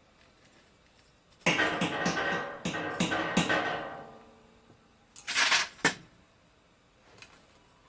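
Metal striking metal: several clangs with a ringing tone that dies away, then a short rasping scrape about five seconds in, as steel tools and clips are knocked against the lead pot or bucket.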